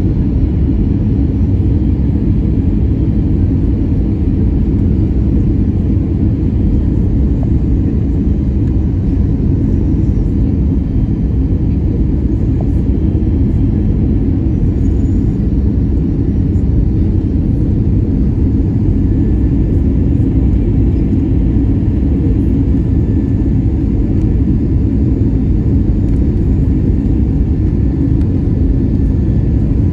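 Steady low rumble of an Airbus A320-214's CFM56 turbofan engines and airflow, heard inside the cabin beside the wing during the approach to landing.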